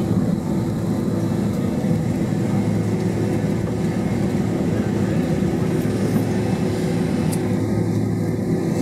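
Inside the cabin of a Boeing 767 rolling along the ground after landing: the engines running at idle and the airframe rumbling, a steady drone with a low hum.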